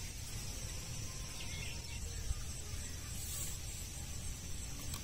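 Steady outdoor background noise: a low rumble under an even high hiss, with one faint click about two seconds in.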